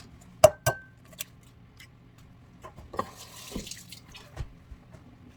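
Eggs tapped sharply twice against the rim of a mixing bowl, with a short ring from the bowl. About three seconds in comes a brief wet splash as the egg drops into the batter.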